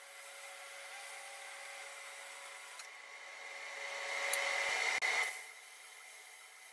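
CNC plasma cutter cutting 15 mm steel plate at 65 amps: a steady hissing whine. It grows louder around four seconds in, then drops away sharply just after five seconds.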